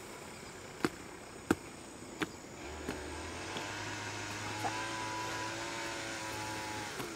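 Three sharp knocks, then a steady motor drone from about three seconds in. Its pitch dips as it stops near the end.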